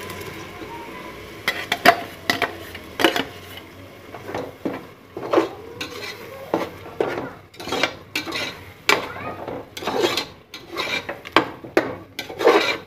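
A slotted metal spoon stirs thick paste in an aluminium pressure cooker, scraping and clinking against the pot's sides and bottom in quick, irregular strokes over a light sizzle.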